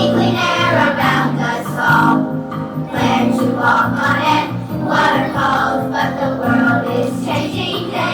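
Music: a song sung by a group of voices over a steady instrumental accompaniment, in phrases of about a second each.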